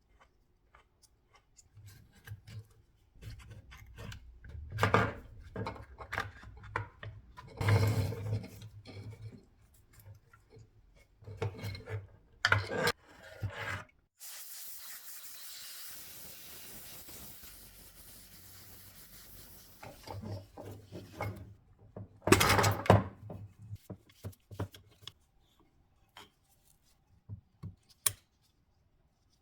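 Scraping, rubbing and clicking of hands and tools on a cordless jigsaw's plastic housing and parts, in irregular bursts. A steady hiss runs for about six seconds midway.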